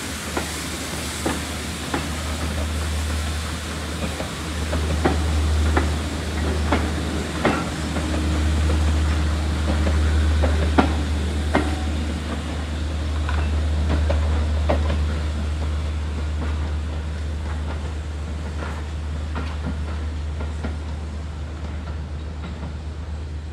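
Steam-hauled passenger train, double-headed by GWR small Prairie tanks 5552 and 5553, running slowly past and away, its coach wheels clicking irregularly over rail joints and pointwork over a steady low rumble. The clicks thin out and the sound fades gently towards the end as the train draws off.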